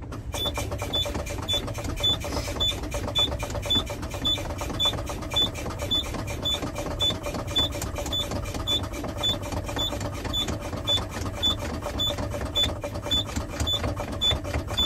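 Semi truck's low-air-pressure warning buzzer beeping at one steady high pitch, about two beeps a second, over a rapid rattling texture. It signals that the air brake system pressure has dropped below about 60 PSI while the brake pedal is fanned to bleed the air down.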